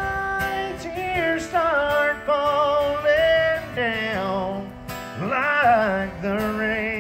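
Live country song: a male voice singing long, wavering held notes over acoustic guitar, with a sharp upward swoop into a high note about five seconds in.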